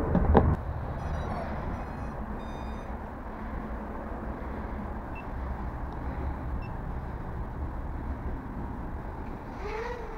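Small red toy quadcopter and its remote: a knock, then several quick runs of short high-pitched electronic beeps as the drone and remote pair. Near the end the drone's small motors start up with a short rising whine that settles into a steady hum.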